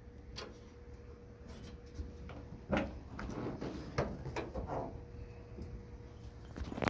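The hood latch of a 1967 Ford F250 being worked by hand and the hood lifted: a few scattered metal clicks and clunks, with one sharp click near the end.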